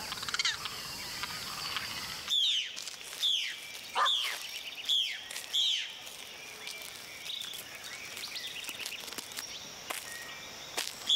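A bird calling a run of five loud whistled notes, each sweeping sharply downward, a little under a second apart, starting a couple of seconds in. Beneath it is a faint, steady background of rainforest insects and birds.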